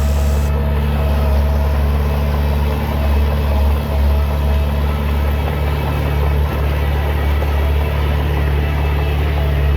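Diesel engine of heavy earthmoving machinery running steadily, a deep low drone with no change in pace.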